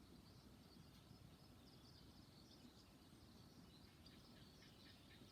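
Faint chirping of small birds over a low, steady background rumble, with a quicker run of short chirps about four seconds in.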